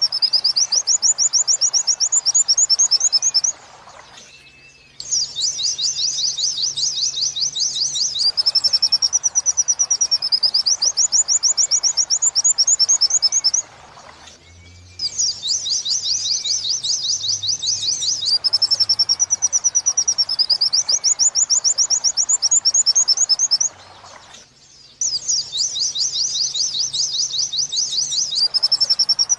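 White-eye (pleci) song in the 'wit-wit sambung kuntilanak' style: fast, high, rapidly repeated trilled notes that swoop up and down, sung in runs of several seconds with brief pauses about every ten seconds. It is a repeating tutor recording used to teach the song to captive white-eyes.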